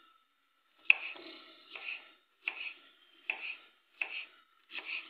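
A knife slicing bitter gourds (karela) into rounds on a cutting board: six crisp cuts, about one every three-quarters of a second.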